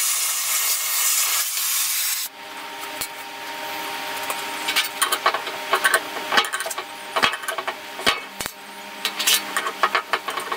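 Compressed air hissing hard for about two seconds onto the hot cast-steel tow jaw, cooling it after flame straightening. A steady low hum follows, with a run of metal scraping, clicks and knocks as the steel part is handled and worked.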